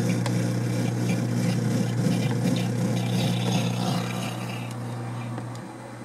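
Laundry Alternatives compact washing machine draining its rinse water: a steady motor hum with the rush of water being sucked out of the tub, easing off and getting quieter over the last couple of seconds as the tub empties.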